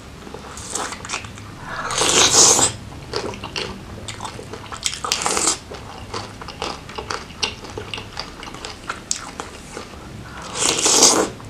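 Close-miked eating of crab and prawn meat in Padang sauce: wet biting, chewing and mouth clicks, with three louder, longer spells of noise about two, five and eleven seconds in.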